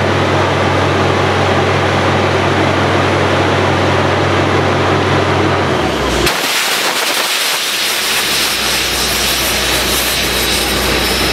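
Truck-mounted borewell drilling rig running steadily: a constant engine note under a loud rushing hiss. About six seconds in, the engine note drops lower and the hiss becomes stronger and brighter.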